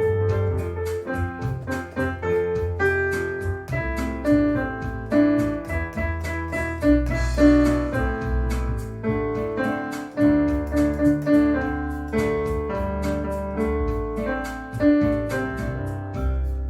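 Roland electric piano playing a melody over low bass notes and chords.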